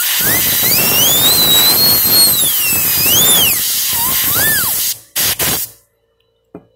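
Compressed-air blow gun hissing loudly into a chainsaw bar's nose sprocket, blasting debris out of the sprocket and its bearings, with a whistling whine through the hiss that rises, wavers and falls. The blast stops about five seconds in, followed by two short puffs of air.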